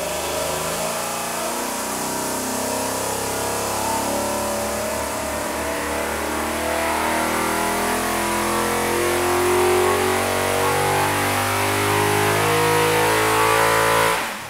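Fuel-injected 409 cubic inch Chevy W-motor V8 running on an engine dyno. It grows louder through the second half, then cuts off abruptly near the end.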